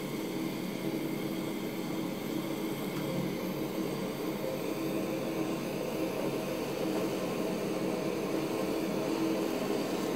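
Handheld kitchen blowtorch burning steadily, its flame played over sauce-glazed eggplant to sear the glaze.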